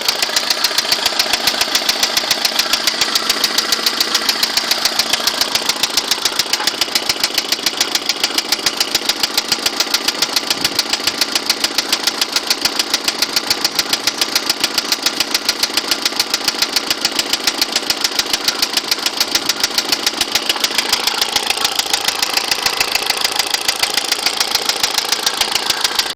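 Internal combustion engine idling while it warms up, with a steady, evenly repeating knock.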